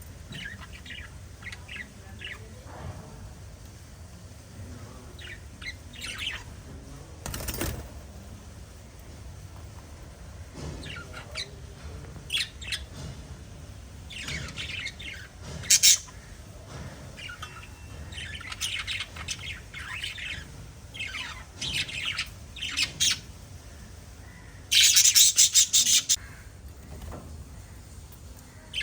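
Small pet parrots chirping and chattering in short scattered calls, with a loud, rapid, harsh burst of calls near the end.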